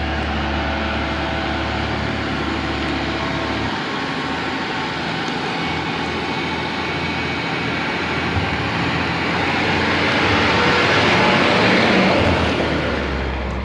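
Diesel school bus driving out of a tunnel along a gravel road and passing close by; its engine and tyre noise grow steadily louder and peak as it goes past, about ten to twelve seconds in.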